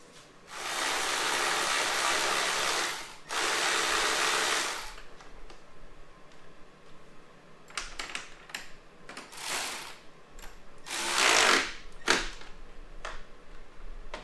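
A cordless power driver running, two steady runs of about two and a half and one and a half seconds, spinning fasteners home. Scattered clicks of hand work follow, then a shorter burst from the driver a little past halfway.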